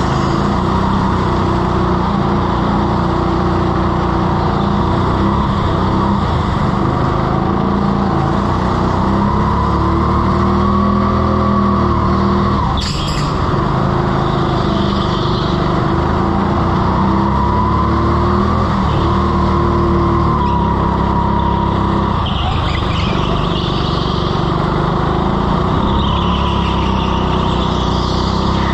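Indoor rental go-kart's single-cylinder four-stroke petrol engine heard on board, its pitch rising along the straights and dropping into the corners. Brief tyre squeals as the kart slides on the slippery floor, and one sharp knock about halfway through.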